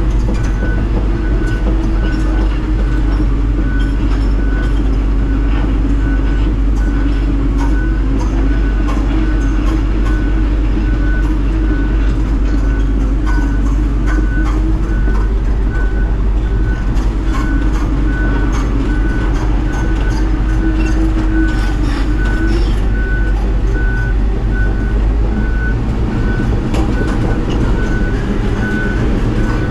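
Hitachi Zaxis 250 excavator running as it travels on its steel tracks, its diesel engine loud and steady while the tracks clatter. A travel alarm beeps evenly, a little faster than once a second.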